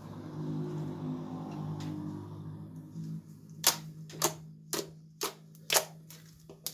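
Fingers pressing and poking into a glossy slime, making a series of sharp clicking pops about twice a second, starting partway through. Before the pops, a steady low hum sits underneath.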